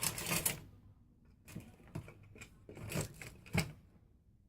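A handful of short clicks and light knocks from hands working the back of a picture frame, pulling out its small black retaining tabs.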